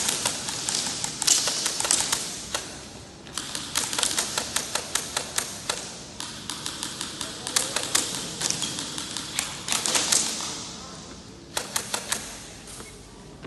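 Airsoft guns firing in several rapid strings of sharp clicking shots, with short pauses between them, thinning out near the end.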